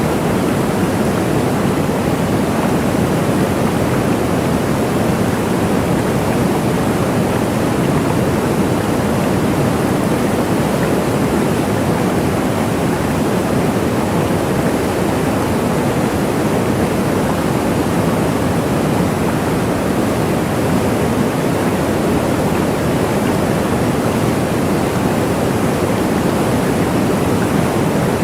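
Waterfall: a steady, unbroken rush of falling water, strongest in its low and middle range, with no change in level.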